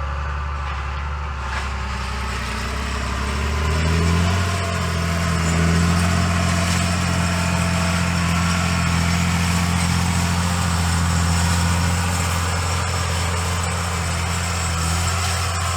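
Tractor engine running steadily. About four seconds in the revs rise a little, then hold even.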